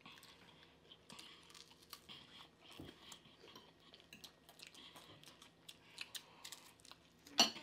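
Chewing and crunching of crispy fried catfish, with many small irregular crackles and clicks. A single louder sharp crack comes near the end.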